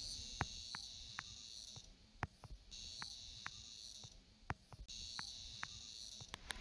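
A high, steady insect trill in three long stretches of about one and a half seconds each, broken by short pauses, with scattered sharp clicks under it.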